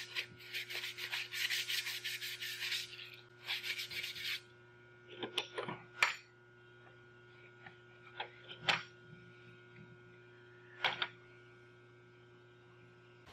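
Sandpaper rubbed quickly back and forth by hand on a wooden knife handle, fine-grit (220) finish sanding, for about four and a half seconds. Then a few scattered light knocks and handling sounds over a faint steady hum.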